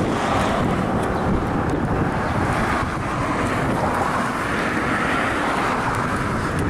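Wind buffeting a camcorder's built-in microphone: a steady, rumbling rush of noise with no distinct events.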